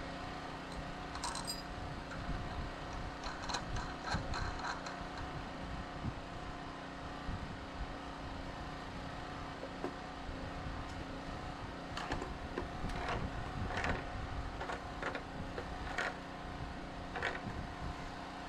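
Light metallic clinks and taps as a steel washer and nut are set on a foundation anchor bolt and turned down with a wrench, a few about four seconds in and more from about twelve seconds on. A steady engine-like hum runs underneath.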